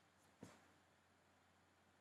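Near silence: faint room tone with one brief faint click about half a second in.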